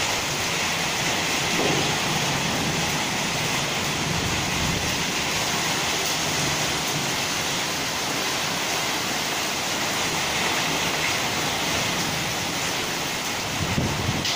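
Hailstorm: hail and rain pelting the ground and nearby surfaces in a dense, steady hiss, with a few low bumps near the end.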